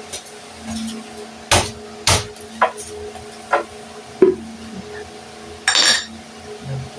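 Sharp knocks on a flat-pack wooden TV stand being assembled, about five irregularly spaced strikes like hammer taps, then a short noisy burst near the end.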